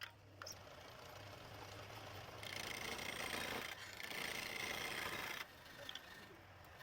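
Wood lathe motor running with a steady low hum. From about two and a half seconds in, a louder hissing scrape of wood being cut lasts about three seconds, then stops.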